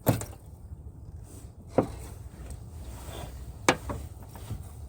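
Three sharp knocks, about two seconds apart, over a steady low rumble.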